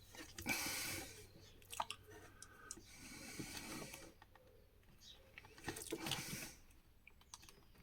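Quiet rustling and small sharp clicks of hands handling the plastic parts and internal wiring of a Makita site radio as connectors are plugged in and pieces fitted together, in three short stretches.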